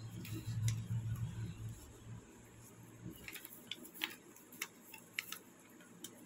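Faint crinkling and sharp little clicks of a small sheet of folded paper being handled and pulled open into a paper boat, scattered irregularly, with a low hum during the first couple of seconds.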